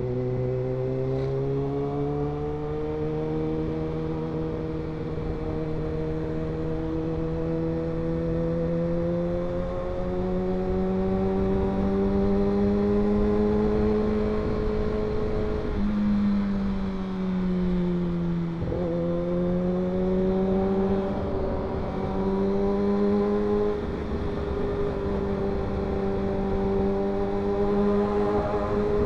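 Kawasaki ZX-6R inline-four engine running on the move, its note climbing slowly. About two-thirds of the way through the pitch dips and breaks off briefly, then rises again.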